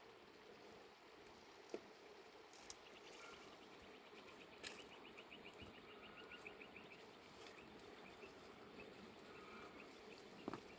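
Near silence outdoors, with a faint insect chirping: a run of rapid, high chirps, several a second, lasting a few seconds in the middle.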